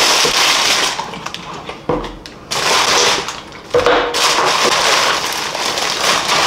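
Thin plastic carrier bag crinkling and rustling loudly as it is pulled open and off a takeout container, in bursts with two short lulls.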